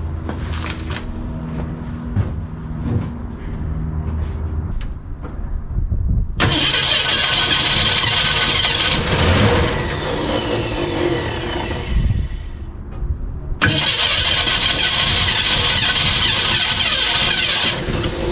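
A 1965 Ford Mustang's 302 V8 cranked on its starter in two tries of about five seconds each, wanting to fire but not catching and running, which the owner puts down to a worn-out, leaking carburettor. A few light clicks and knocks come before the first try.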